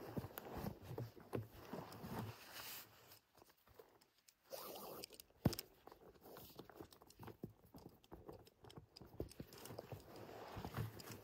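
Tall grass rustling and crackling close to the microphone as a person crouches and moves his hands and body through it, with scattered light knocks and snaps. One sharp snap about five and a half seconds in.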